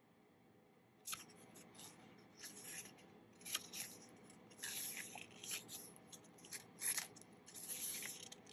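Pages of a small paper booklet being turned by hand: quiet, irregular papery rustles and flicks, starting about a second in.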